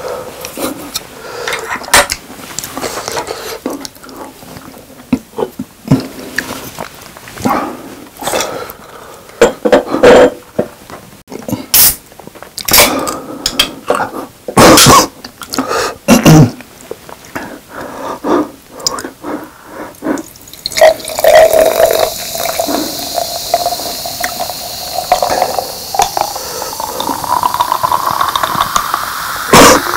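Close-miked eating, chewing with sharp clicks and knocks, for about the first twenty seconds. Then Coca-Cola is poured from a can into a glass mason jar: a steady fizzing hiss with a pouring tone that rises in pitch as the jar fills.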